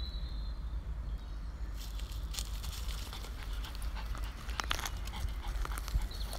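Jack Russell terrier sniffing and padding over dry leaves and dirt, with scattered crackles of leaf litter under its feet. A steady low rumble runs underneath.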